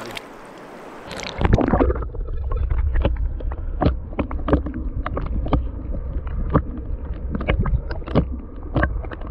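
River water heard through an underwater camera: a muffled low rumble of the current with irregular sharp clicks. This follows a brief open-air rush of the river, which ends about a second in as the camera goes under.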